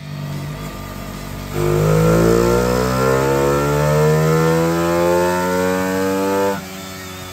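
Suzuki FX125's 125 cc DOHC single-cylinder four-stroke engine doing a wide-open-throttle pull on a chassis dynamometer. It runs lightly at first. About one and a half seconds in, the throttle snaps open and the revs climb steadily for about five seconds, then the throttle is shut and the engine drops back to a low steady run.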